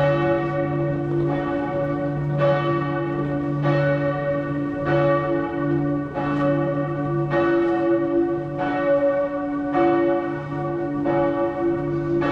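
Church bells ringing, a fresh stroke about every second and a quarter, several pitches humming on and overlapping between strokes.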